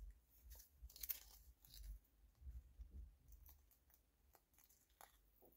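Faint handling sounds of a roll of washi tape being peeled and pulled apart: a few soft scrapes, crinkles and small ticks scattered through an otherwise near-silent room.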